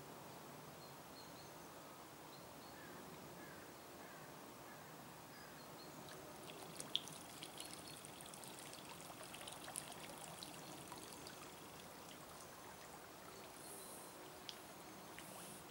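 Faint water splashing and trickling from a hooked carp fighting at the surface of a pond while it is played on a fishing pole, with a few small sharp clicks between about six and eleven seconds in.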